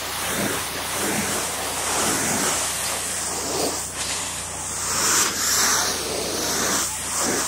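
Water jet from a handheld hose spray wand hissing and spattering across the glass faces of solar panels, a steady spray noise that swells a little as the jet moves.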